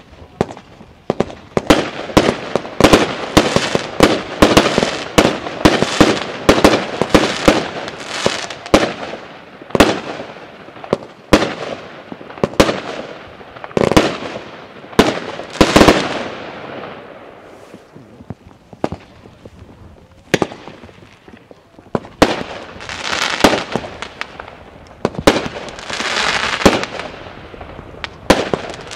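Jorge New Generation 1 firework battery firing shot after shot, roughly one or two sharp bangs a second, each with a hissing crackle. After a lull of a few seconds past the middle, a last flurry of shots follows.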